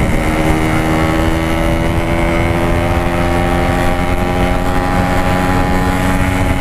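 Yamaha RX-King 135cc two-stroke single-cylinder engine running at steady high revs while riding, through a Packing Power aftermarket exhaust, its pitch creeping slowly upward as it holds the throttle. Wind buffeting rumbles underneath.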